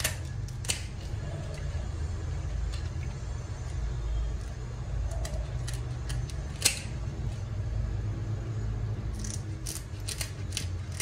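Large kitchen scissors cutting into a whole tuna: scattered sharp snips and clicks, the loudest about two thirds of the way through and a quick run of them near the end, over a steady low hum.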